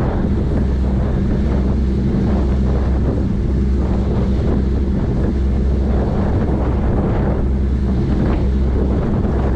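Sightseeing boat's engine running with a steady low hum, under wind buffeting the microphone and the rush of the churning wake astern.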